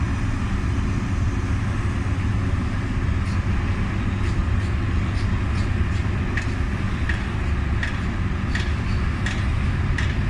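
A steady low hum runs throughout. From about three seconds in, light sharp clicks come roughly once or twice a second.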